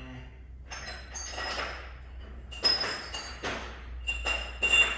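Metal pieces clinking and scraping together in a series of short rattles with a metallic ring, the sharpest clanks about halfway through and near the end.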